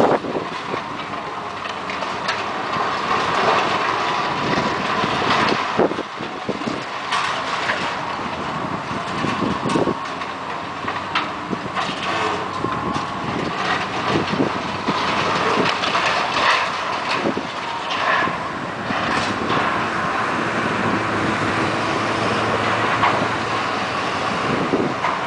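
Hydraulic demolition excavators running steadily while the boom's attachment tears into the wreckage, with frequent irregular clanks, scrapes and crunches of metal and concrete debris.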